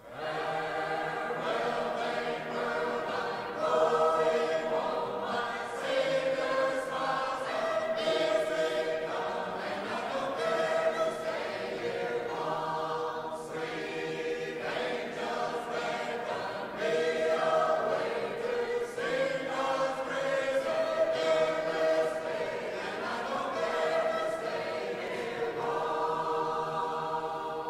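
A choir singing slowly in long held chords, a sung soundtrack under the opening titles.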